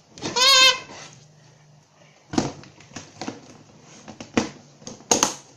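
A storage box being handled, closed and set aside: a string of separate clicks and knocks, with quiet gaps between them. About half a second in there is a short, high, wavering sound from a voice.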